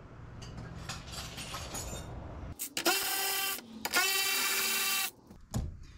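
Handheld cordless power tool run in two bursts of about a second each, a steady whine that dips in pitch between them, driving out the bolts of the radiator support cover.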